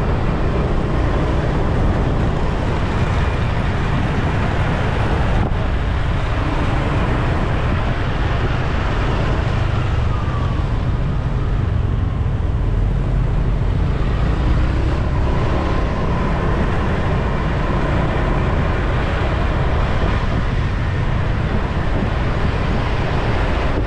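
Steady rush of wind over the microphone with road and traffic noise, heard from a motorbike riding through city traffic. The low rumble is heaviest, and a faint engine or vehicle tone passes through now and then.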